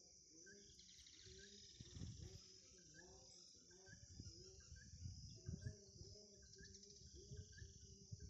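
Faint, steady high-pitched chorus of insects, crickets, with quieter short calls repeating about twice a second and a low rumble on the microphone.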